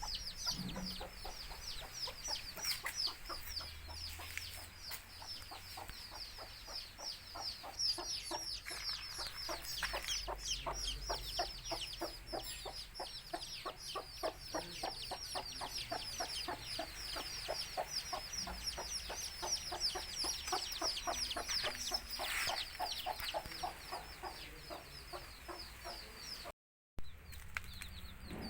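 A brood of country chicken chicks peeping constantly, many short downward chirps overlapping, while a mother hen clucks in a fast series through the middle, the clucking call a hen uses to call her chicks to food. The sound drops out for a moment near the end.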